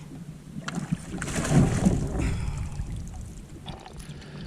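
Hooked largemouth bass splashing in the water beside a kayak as it is brought in, with a few short knocks.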